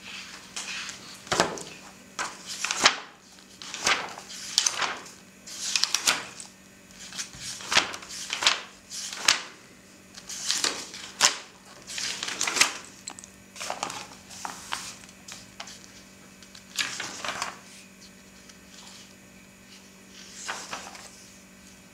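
Pages of a glossy magazine being turned and handled: irregular paper rustles and swishes, about one a second, sparser near the end. A faint steady low hum underneath.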